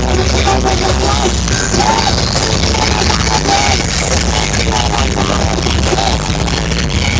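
Loud music with heavy, continuous bass played through a large sound-system rig.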